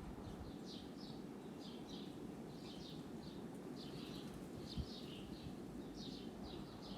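A small bird chirping, short high chirps repeating irregularly about once or twice a second, often in pairs, over a steady low background rumble. A single soft thump is heard near the middle.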